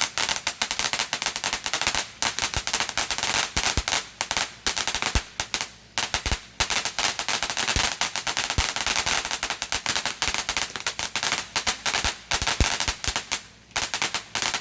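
Firecrackers going off in a rapid, unbroken string of sharp pops and bangs, many per second, like a long string of firecrackers burning down.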